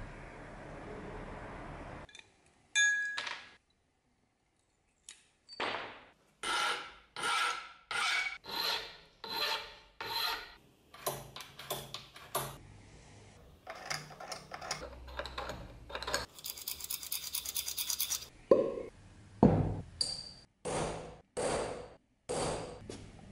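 A utility knife blade scores lines into a brass bar along a steel ruler, in a run of separate scraping strokes. Near the end a center punch is struck into the brass on a small anvil, giving several sharp metallic strikes, the loudest sounds here.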